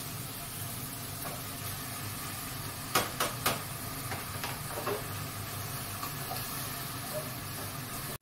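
Three sharp metallic clacks close together, as a mesh strainer of parboiled carrots and potatoes is knocked against a stainless saucepan to tip them in, followed by softer clicks of chopsticks stirring the pot, over a steady hiss.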